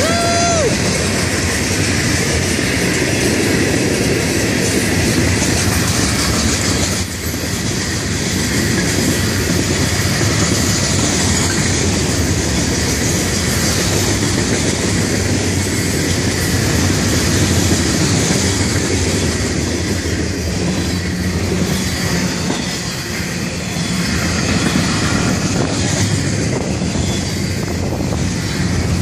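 Freight cars of a Florida East Coast train rolling past: hopper cars, then container well cars. Their steel wheels make a steady noise on the rails.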